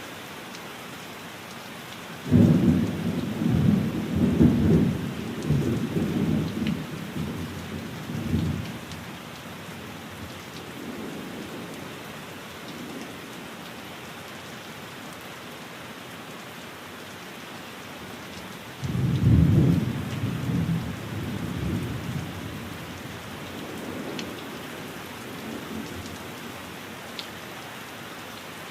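Steady rain hissing, with two rolls of thunder. The first breaks suddenly about two seconds in and rumbles on for several seconds; the second comes about two-thirds of the way through and fades out more gently.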